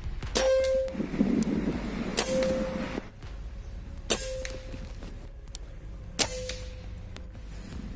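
Four sharp air-rifle shots about two seconds apart, each followed by a brief ringing tone.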